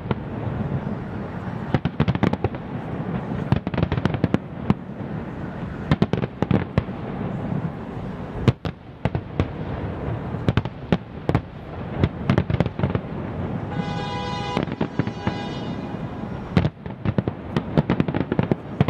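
Fireworks display: a rapid, irregular string of shell bursts and crackles over a constant low rumble. A held pitched tone sounds for about a second and a half, roughly fourteen seconds in.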